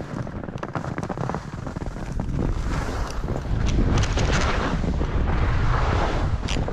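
Skis scraping and chattering on snow in short, irregular strokes, under a steady low rush of wind on the microphone that grows louder from about halfway in.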